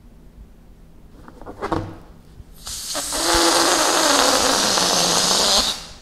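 Air escaping from the neck of an inflated latex balloon as it is let down by hand. A brief falling squeal comes about a second and a half in. Then about three seconds of loud, steady hissing rush follow, with a low tone sinking in pitch, cutting off suddenly as the balloon empties.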